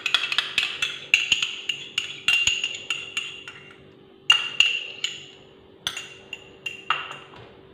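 Metal spoon clinking against a glass bowl while stirring peach purée: sharp ringing clinks, several a second, in bursts with short pauses between them.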